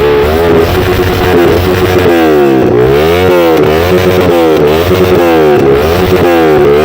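Yamaha R25's parallel-twin engine through a full-system aftermarket exhaust, loud, revved while stationary: held up for about two seconds, then blipped up and down about once a second.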